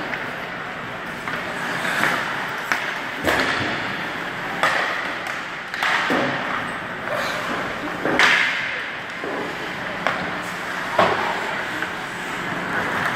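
Ice hockey rink sounds: sharp knocks and clacks of hockey sticks and pucks on the ice and boards, one every second or two, over a steady rink noise.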